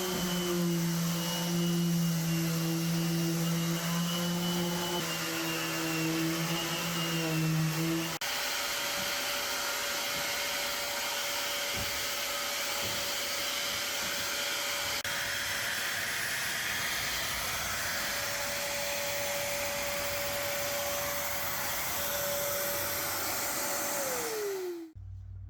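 Electric orbital sander running steadily on epoxy-coated plywood. The sound changes abruptly about 8 seconds in to a higher, steady hum. Near the end the hum winds down in pitch as the motor is switched off.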